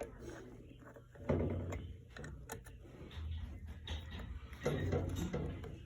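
Hand tools working on metal fittings: irregular clicks and short bursts of clatter, with louder bursts about a second in, near the middle and near the end.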